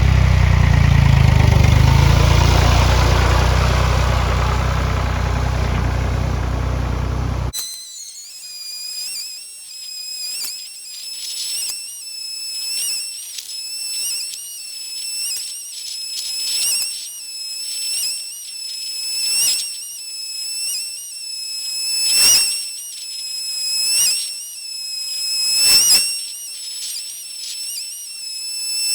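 Tractor engine running loudly for about seven seconds, then cut off suddenly. A steady high-pitched whistling tone follows, swelling in regular pulses a little over a second apart and growing louder toward the end.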